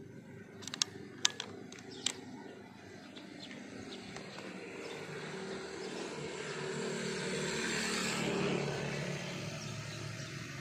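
A motor vehicle passing: its engine hum and road noise grow louder to a peak about eight seconds in, then fade. Three sharp clicks about a second or two in are the loudest sounds.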